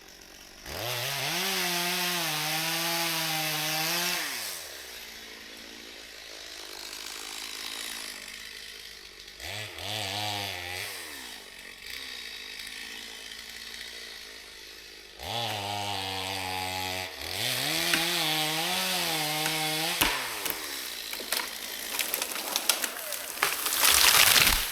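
Small engine revved in four bursts, each rising in pitch, wavering while held, then dropping back. A louder rushing, rasping noise comes near the end.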